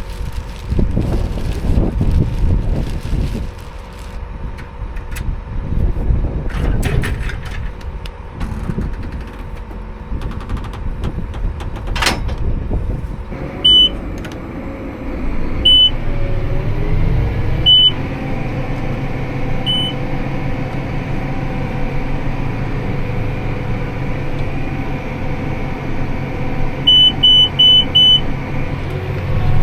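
Tractor engine running under load with rough rumble and noise in the first part, settling to a steady drone. Partway through, a high electronic beep sounds four times about two seconds apart, then four quick beeps near the end: a round baler's cab monitor alarm during baling.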